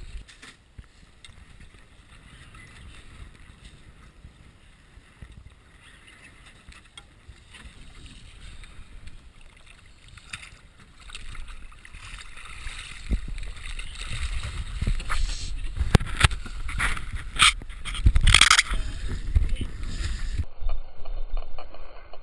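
Sea water lapping and sloshing against a small boat's hull, with wind on the microphone. From about 11 seconds in it grows louder, with repeated splashes and knocks as a hooked hammerhead shark thrashes at the surface beside the boat, the loudest bursts a few seconds before the end.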